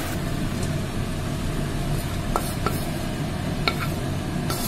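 Spatula scraping and knocking against a kadai as fried banana stem is scooped out, with a few short sharp clinks in the second half. A steady low hum runs underneath.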